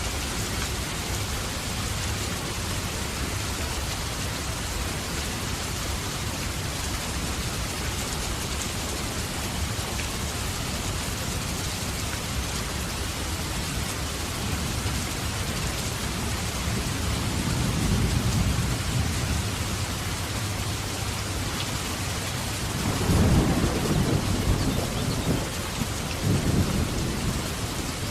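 Heavy rain falling steadily with low rolls of thunder: a slow rumble a little past halfway, then a louder one near the end, followed closely by another.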